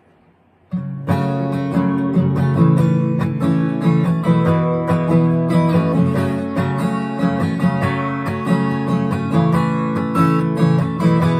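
Acoustic guitar strummed in a steady rhythm, starting about a second in after a short quiet: the instrumental intro of a song before the singing comes in.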